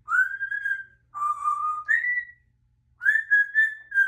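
African grey parrot whistling: three held notes (middle, lower, then higher), a pause, then a quick run of short notes ending in a held note.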